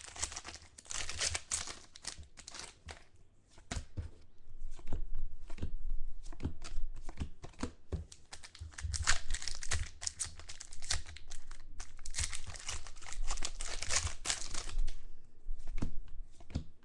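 Foil wrapper of a 2013 Contenders football card pack being torn open and crinkled, in long stretches of crackling with sharp clicks and short pauses between them.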